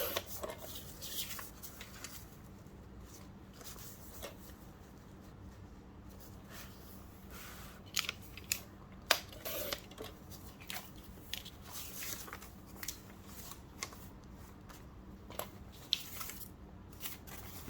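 Sheets of coffee-dyed paper being folded in half and trimmed: scattered short rustles, creases and cuts, with brief clusters of paper handling about halfway through and near the end.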